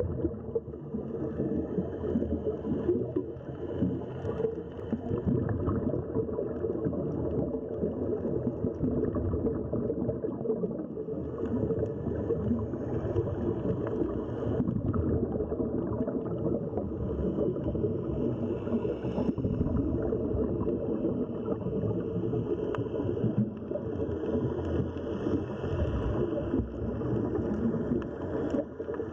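Underwater sound heard through an action camera's waterproof housing: a steady, muffled rumble. Every few seconds the hiss of scuba regulator exhaust bubbles rises and falls over it.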